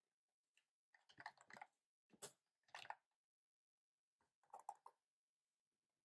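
Quiet keystrokes on a typewriter-style keyboard with round keycaps, in short bursts: a run of several keys about a second in, single strokes near two and three seconds in, and another short run past four seconds.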